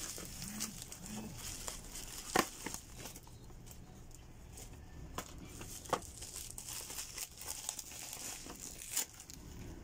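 Plastic packaging and bubble wrap crinkling and rustling as it is handled and unwrapped, with a few sharp clicks along the way.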